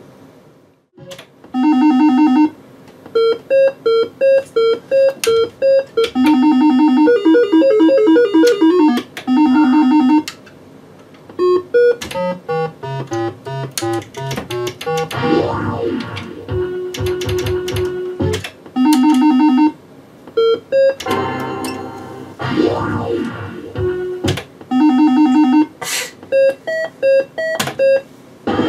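Merkur Rondo slot machine playing its electronic bleeping sound effects: short repeated beep jingles, stepping tone melodies, a falling run of notes about twelve seconds in, and quick rising and falling sweeps of tones.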